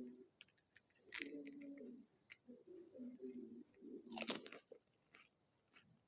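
Someone chewing crisp panipuri shells, with two louder crunches, about a second in and about four seconds in, and small wet clicks between them.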